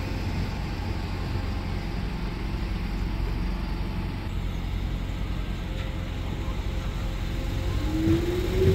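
Docklands Light Railway train at the platform with a low steady rumble; near the end its electric traction motors start a rising whine as the train begins to pull away.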